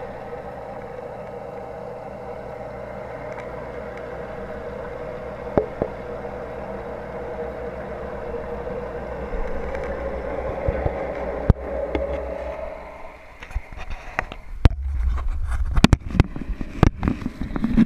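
A steady mechanical hum for about thirteen seconds. It then drops away, and a run of sharp knocks and clatter follows.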